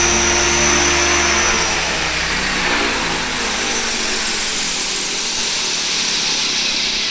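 HK-500 radio-controlled helicopter's motor and main rotor running, with a high whine and steady hum. The whine fades about two seconds in and the pitched hum falls away, leaving a softer whir as the rotor slows.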